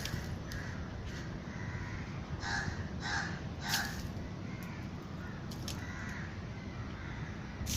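Crows cawing: three harsh caws in quick succession about two and a half seconds in, with fainter calls later, over a steady low background rumble.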